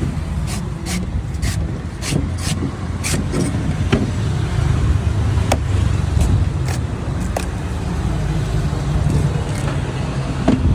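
A blade chopping into a young coconut: a run of crisp, sharp strikes, about three a second for the first few seconds, then a few more spaced out. Underneath is a steady low rumble of road traffic.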